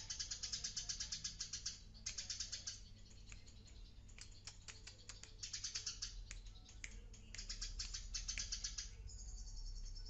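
Eurasian tree sparrow singing: fast runs of high, rapid chirps in bursts of a second or two with short breaks between, and a steadier, thinner high note near the end.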